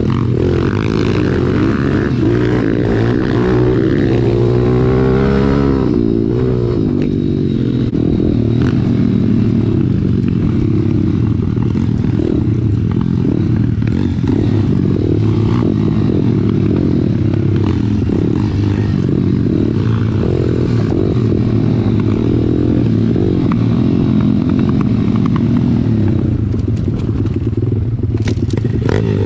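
Pit bike's small single-cylinder four-stroke engine under way on a dirt trail, its note rising and falling as the rider works the throttle, with a sweeping rev up and down a few seconds in.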